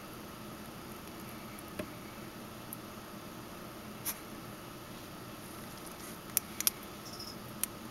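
Hardwicke's spiny-tailed lizard crunching dry red lentils: scattered short, sharp crunches, a few spread through the first half and a quicker cluster about three-quarters of the way through.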